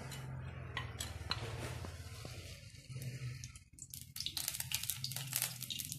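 Cooking oil poured into a hot kadhai on a gas stove, over a low steady hum. About four seconds in, the oil starts to crackle and spit in the heated pan.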